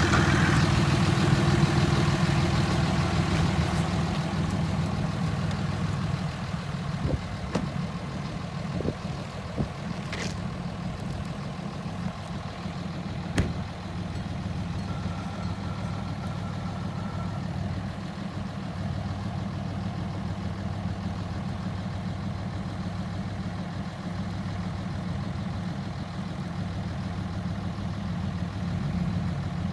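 Heavy-duty diesel pickup engine running steadily near idle, a little louder for the first few seconds and then settling, with a few light knocks partway through.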